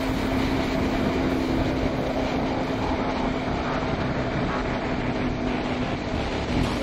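Motorcycle engine running steadily at cruising speed, heard from the bike itself, with a constant rush of wind and road noise over the microphone.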